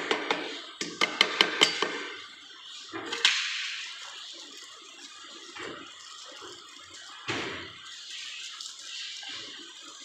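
Small metal screws and fittings clicking and a plastic hardware bag rustling as they are handled by hand. There is a quick run of sharp clicks in the first two seconds, then softer rustling with a single thump about seven seconds in.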